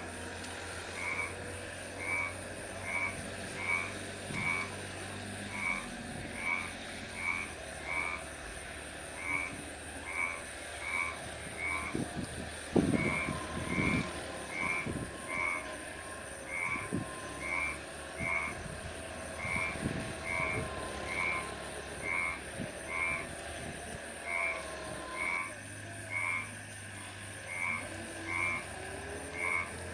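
Frogs calling from flooded rice paddies: short, evenly repeated croaks, about one and a half to two a second, keep on throughout. A few dull low thumps come about halfway through.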